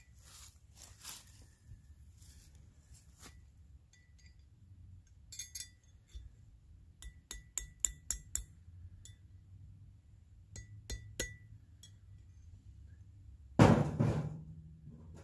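Scattered light metal-on-metal clinks and taps with a brief ring, from a copper cloak pin being handled and tapped against a rusty steel rail used as an anvil; a quick run of taps comes around the middle. Near the end there is a single louder thump.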